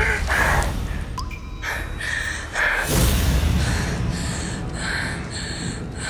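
A person gasping and breathing fast and hard, short breaths about two a second, in distress, over a low rumble.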